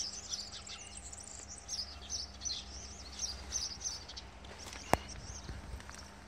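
Small birds chirping and twittering over and over, high and quick, over a steady low rumble. A single sharp click about five seconds in.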